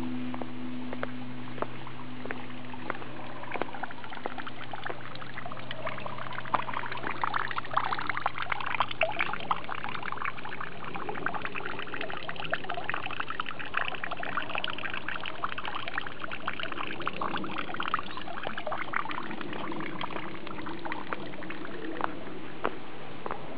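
The low hum of Hōnen-in's large temple bell (bonshō) dies away over the first few seconds, leaving water pouring and trickling with many small splashes, louder in the middle.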